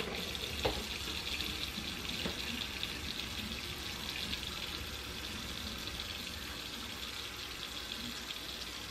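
Kitchen faucet running steadily onto wet hair, the water splashing into a stainless steel sink and down the drain.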